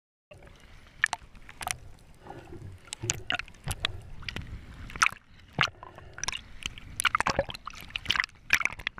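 Underwater sound heard through a diver's camera housing: a muffled wash of water with many irregular sharp clicks and crackles.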